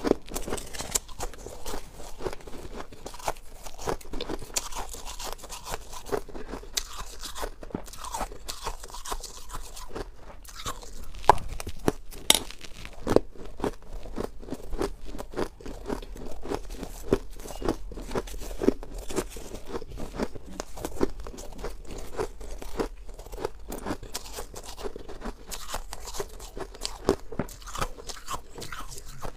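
Close-up crunching and chewing of mouthfuls of freezer frost: a dense, steady run of crisp crunches.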